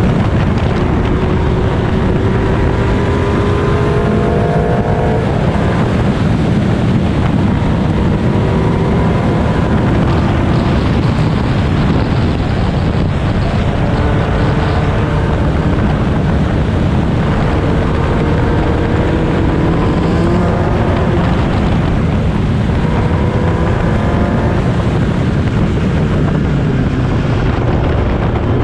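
On-board sound of a historic single-seater racing car at speed: the engine note climbs in pitch through the revs again and again and drops back at each gear change or braking point. Heavy wind and road rush on the car-mounted microphone runs under it.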